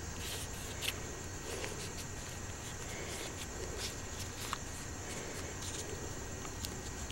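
Faint, scattered clicks and rustles of hands handling a pocket knife and masking tape, over a steady background hiss.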